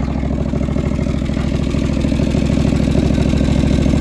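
The 20 hp liquid-cooled two-cylinder Kawasaki FD620D engine of a John Deere 425 garden tractor running steadily, getting a little louder toward the end.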